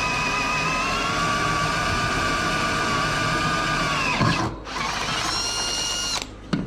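Electric drill running at a steady whine, then released and spinning down about four seconds in; a second short burst at higher speed follows and stops abruptly, with a sharp click near the end.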